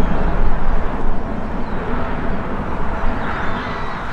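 Jet engine noise from a climbing Boeing 777 freighter, a steady rumbling roar, mixed with wind buffeting the microphone.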